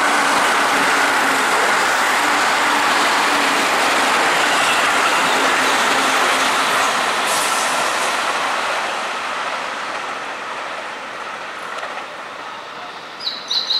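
Keihan 3000 series limited express electric train running through the station at speed close by: a loud, steady running noise of wheels on rails that fades over the last few seconds as the train moves away. Birds chirp briefly near the end.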